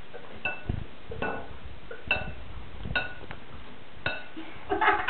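A spatula and food-processor bowl clinking against a glass mixing bowl while grated carrot mixture is scraped out. About six knocks, roughly one a second, each with a short glassy ring, the loudest near the end.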